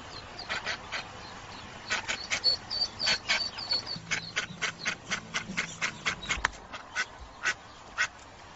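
Hen mallard quacking in quick runs of short, sharp calls, up to about four a second, calling to her ducklings trapped down a storm drain.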